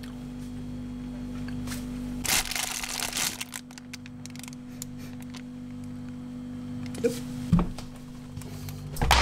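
Steady low hum of an open refrigerator. About two seconds in comes a burst of rustling as food is handled on the shelf, and near the end two short knocks, as the fridge door shuts.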